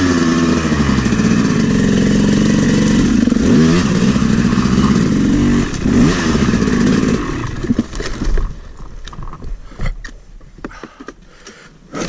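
A freshly rebuilt 2011 Yamaha YZ250's single-cylinder two-stroke engine revving up and down over rough trail. About eight seconds in the engine sound drops away to near idle, leaving clattering and knocks from the bike, then picks up again at the very end.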